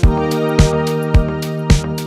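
Background music: sustained chords over a steady, sharp beat, about two beats a second.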